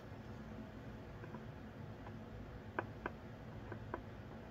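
A few faint, sharp clicks and taps from soldering work on a circuit board, mostly in the second half, over a low steady hum.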